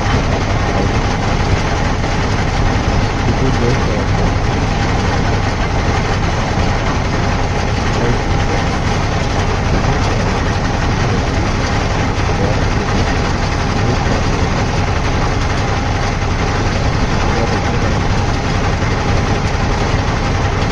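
Diesel engine of heavy construction machinery running steadily at idle.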